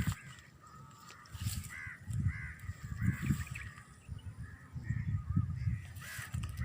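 Birds calling over and over, short arched calls coming in quick succession from several birds, with irregular low rumbling bursts underneath.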